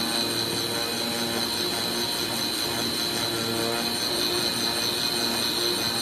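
Digital flatbed CNC cutting table at work on corrugated board: a steady high whine, with the cutting head's drive motors humming in short tones that change pitch every half-second or so as the head moves along the cut lines.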